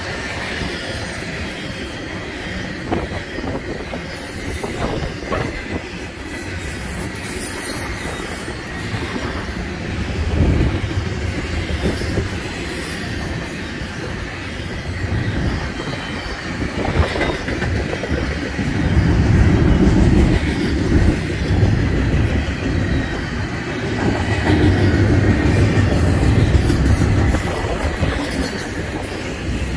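BNSF train's cars rolling past on the rails, a steady rumble with a faint high wheel squeal. The low rumble swells twice in the second half.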